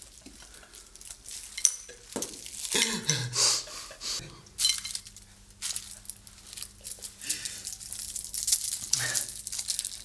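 Wrapped sweets clinking and rattling in a small glass bowl as they are handled and dropped back in, with some wrapper crinkle and bits of laughter.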